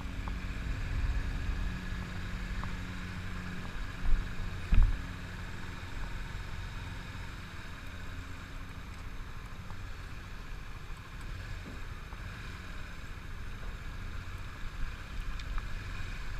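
Sport motorcycle ridden slowly, its engine running under a steady low rumble, with two sharp knocks about four and five seconds in.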